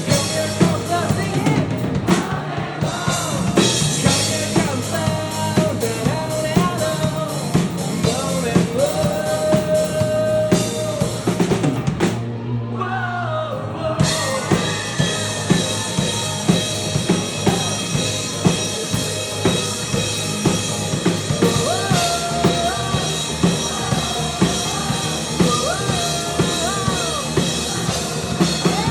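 Live rock band in full swing: drum kit keeping a steady beat under bass, guitars and a sung lead vocal. About twelve seconds in, the drums and cymbals drop out for roughly two seconds, then the full band comes back in.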